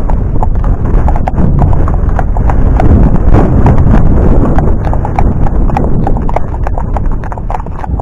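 Horses' hooves clip-clopping on a tarmac road: a run of sharp, irregular strikes from more than one horse.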